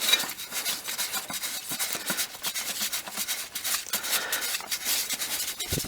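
A new oil filter being twisted by hand onto its threaded mount: dense rapid scratching, rubbing and small clicks of hand and filter on the threads.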